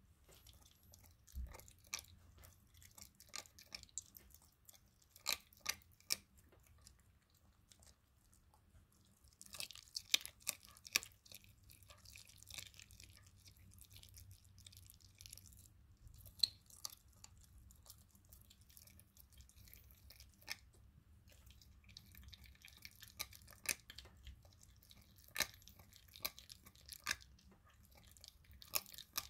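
German shepherd puppy chewing raw chicken on the bone: irregular crunches and clicks, with a busier run of crunching about ten seconds in.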